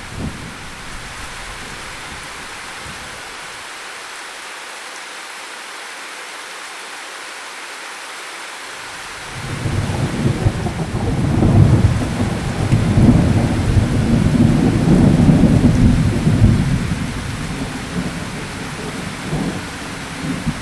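Steady rain falling, with a long roll of thunder that comes in about halfway through, rumbles for several seconds and fades away.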